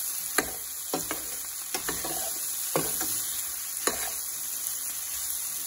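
Chopped vegetables sizzling in a stainless steel pan while a metal spoon stirs them, clicking and scraping against the pan about five times.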